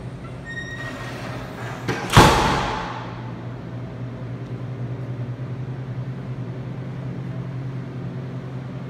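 A door shuts with one loud bang about two seconds in, dying away over most of a second in a tiled room. A steady low hum runs underneath throughout.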